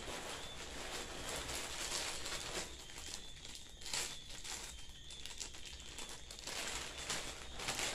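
Clear plastic packaging bag crinkling as it is handled and pulled open by hand.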